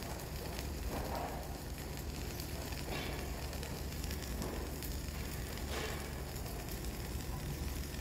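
Flux-cored arc welding: the arc crackling steadily as a dense run of small pops, over a steady low hum.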